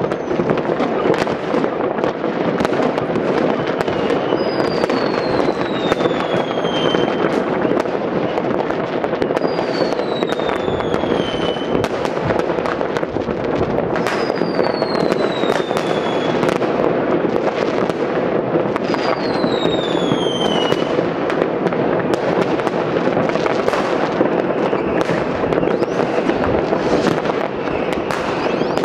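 New Year's Eve fireworks and firecrackers going off all over a city: a dense, unbroken crackle of bangs. Four long falling whistles come through it, about five seconds apart.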